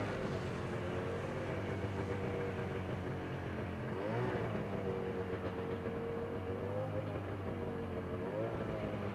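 Engine of the vehicle towing a sofa-sled on a rope, running at a fairly steady speed while pulling. Its pitch wavers a little and briefly eases off and picks up again about four seconds in.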